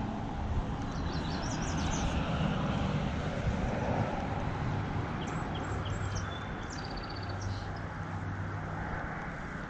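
Road traffic passing, a steady hum and hiss with a low drone coming back in about six seconds in, and small birds chirping a few times above it.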